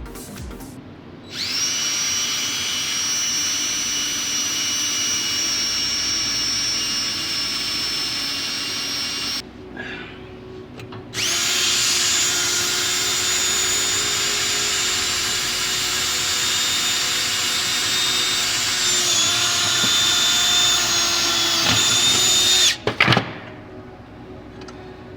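Electric drill running in two long runs, about eight and eleven seconds, boring a hole through the metal clutch pedal; its whine dips slightly in pitch near the end of the second run as it loads up. A couple of sharp knocks follow just after it stops.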